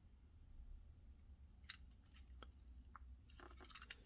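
Near silence with a few faint clicks and taps, typical of small die-cast toy cars being handled and set down: one about a second and a half in, and a small cluster near the end.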